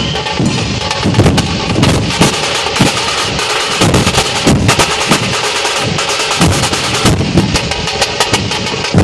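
Dhol drum ensemble playing together, the big barrel drums beaten with a stick on one head and a hand on the other. Rapid sharp stick strokes run over low booming beats that recur about twice a second.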